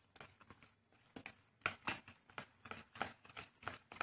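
A utensil stirring thick chocolate cake batter in a plastic bowl: quick, irregular clicks and scrapes against the bowl's sides, faint, sparse at first and coming thick and fast from about a second in.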